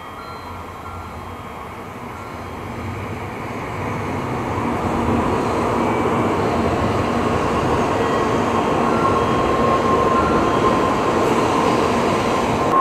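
Tokaido Shinkansen train running into the station, its rumble and rushing noise growing steadily louder over several seconds, with a steady high tone coming up near the end.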